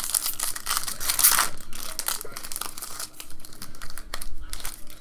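Foil wrapper of a hockey card pack crinkling and tearing as it is opened by hand, loudest about a second in, then a run of shorter crackles as the wrapper is handled.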